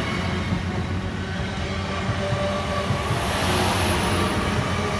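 Great Western Railway Class 800 bi-mode train running past close by, with a steady sound of wheels on the rails over the low hum of its underfloor diesel engines.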